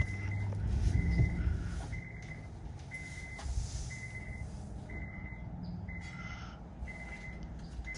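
An electronic warning beeper sounding a single steady high tone about once a second, each beep about half a second long.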